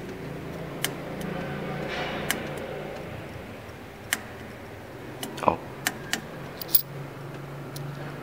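Small tactile push buttons on a bumper car's coin-setting control board clicking as they are pressed one at a time, several sharp clicks at irregular intervals, over a faint steady low hum.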